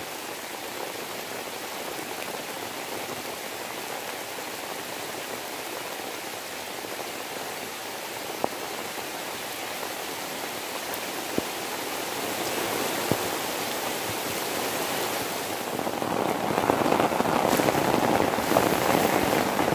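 Heavy rain falling steadily, with a few sharp drips, growing louder over the last few seconds.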